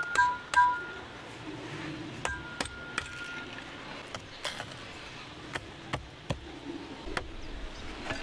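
Sharp strikes: two ringing, metallic-sounding hits in the first second, then irregular knocks about once a second, one of them ringing briefly.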